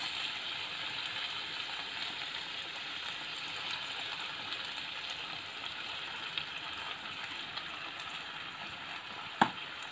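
Sliced onions and carrots sizzling steadily in hot oil in a frying pan, with one sharp click near the end.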